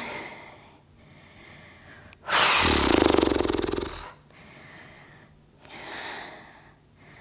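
A person breathing deeply: a quiet inhale, then a loud exhale about two seconds in, blown through fluttering lips like a horse's snort, followed by another quiet inhale and a softer exhale.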